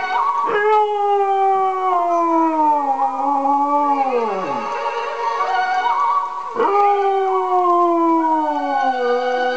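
Cocker spaniel howling along to operatic soprano singing: long howls that slide down in pitch, with a fresh howl starting about two-thirds of the way through.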